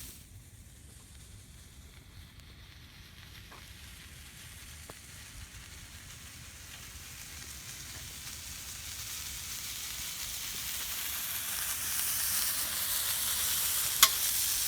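Mushrooms and heirloom tomatoes searing in oil on a hot flat-top griddle, a steady sizzle that grows gradually louder. A single sharp click comes near the end.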